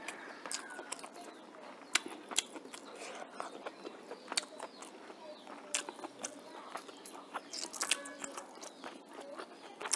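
Close-up mouth sounds of a person eating rice and chicken curry: chewing with wet smacking clicks, many sharp ones scattered irregularly.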